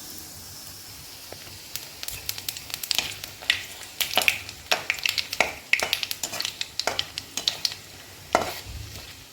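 Bay leaves, dried red chillies and black cumin seeds sizzling in hot oil in a kadai, a soft hiss at first, then many sharp crackles and clicks from about two seconds in.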